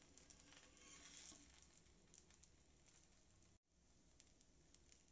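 Faint sizzling with small crackles from a stuffed chapati cooking in a little oil on a hot dosa tawa. The sound cuts out for a moment about three and a half seconds in.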